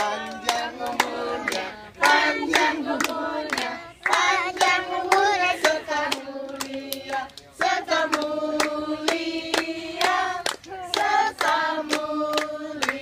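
A group of people clapping together in a steady rhythm while singing a song in several voices, with held, sustained notes.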